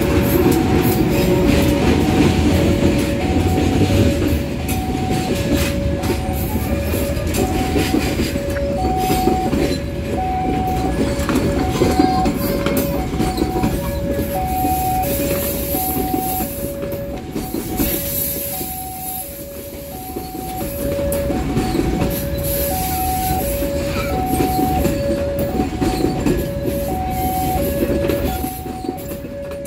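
Passenger train hauled by a diesel-electric locomotive passing close by, the locomotive and then the coaches rumbling and clacking over the rails. Over it, the level-crossing warning alarm rings steadily as an evenly repeating two-note chime.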